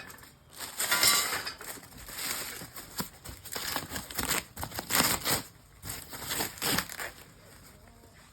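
Packing material crinkling and rustling in irregular bursts as wrapped shelving parts are handled and unpacked, with a few light knocks.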